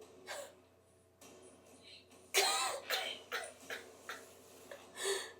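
A person coughing in short bursts, the strongest about two and a half seconds in and another near the end.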